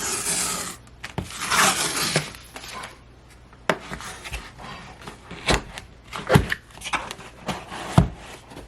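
Packaging being handled and opened: two stretches of rustling near the start, then a series of separate knocks and taps on the box.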